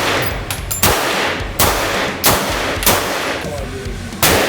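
Five single gunshots, fired one at a time about a second apart, each followed by a short ringing tail. There is a longer pause before the last shot.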